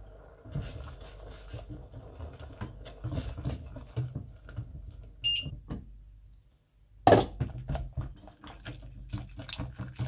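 Cooking sounds at a stainless steel saucepan on an induction hob: soft handling and pouring noises, then a short electronic beep from the hob's touch controls about five seconds in. About seven seconds in comes a loud clunk as a glass bowl is tipped into the pot, followed by quick repeated clicking of a whisk stirring in the pot.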